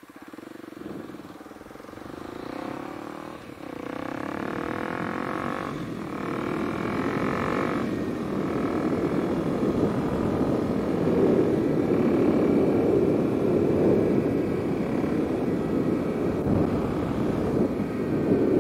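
Kawasaki KLX300 single-cylinder four-stroke through a carbon Delkevic slip-on exhaust, pulling away through the gears. The revs climb in three runs broken by gear changes in the first eight seconds, then the bike settles into steady riding as a rushing wind noise builds and gets louder.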